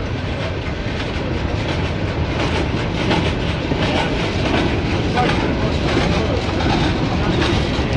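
Freight cars rolling past: a steady rumble of steel wheels on rail, with irregular clicks as the trucks cross rail joints, growing a little louder after a couple of seconds.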